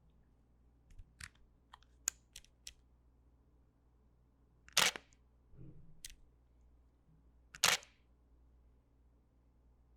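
DSLR camera shutter firing: two loud sharp shutter clicks about three seconds apart, with several lighter clicks before them.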